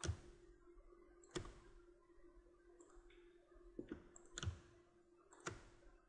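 Faint computer mouse clicks, about five spread unevenly over a few seconds, over a low steady hum.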